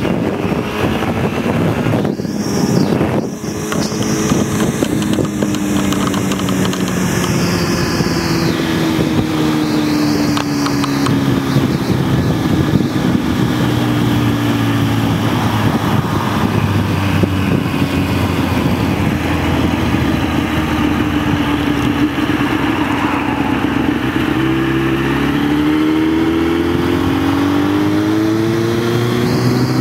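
Kawasaki ZX-10 sport bike's inline-four engine running at road speed under wind rush. The note dips briefly about two seconds in, sinks slowly over the first half, then rises again near the end as the revs climb.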